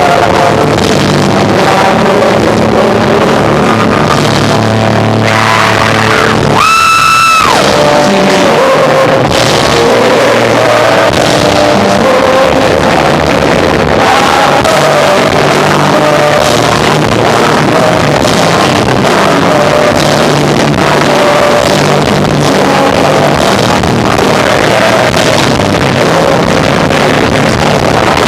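Live rock band of electric guitar, bass guitar and drums with vocals, playing loud; the recording is overloaded and distorted. A single high note rings out strongly for about a second, a quarter of the way in.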